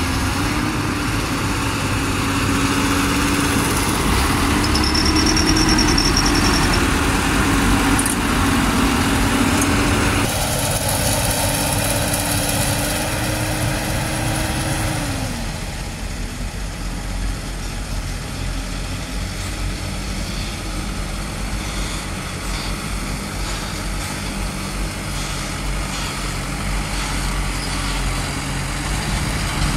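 Diesel dump truck engines idling and running. A steady hum holds one pitch and then slides down about halfway through, and the sound changes abruptly about ten seconds in.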